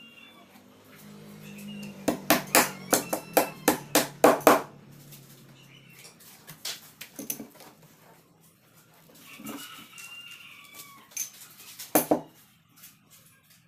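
Hammer blows on wood: a quick run of about ten strikes from two to five seconds in, then two more near the end. Chickens cluck in the background.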